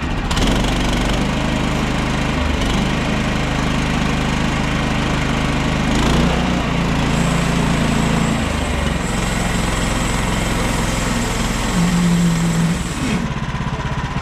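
Portable band sawmill's small gas engine throttled up and running under load while the band blade saws a board, with a steady cutting hiss over the engine. About thirteen seconds in the cutting hiss stops suddenly and the engine drops back toward idle.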